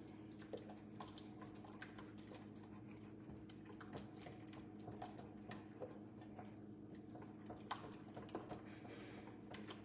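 A wire whisk clicking and scraping faintly and irregularly against a stainless steel pot as custard is whisked on the stove, over a steady low hum.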